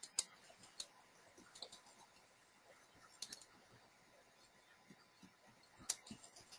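Faint computer keyboard keystrokes: scattered single key clicks, a few at a time with short pauses between.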